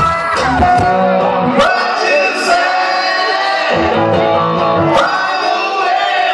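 Live music: a man singing with gliding notes over an amplified guitar. The bass drops out about a second and a half in, comes back briefly in the middle, then drops out again.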